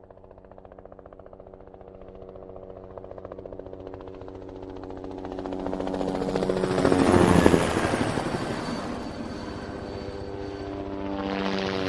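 Helicopter flying by, its rotor chop and turbine whine growing steadily louder to a peak about seven seconds in. It eases off, then swells again near the end.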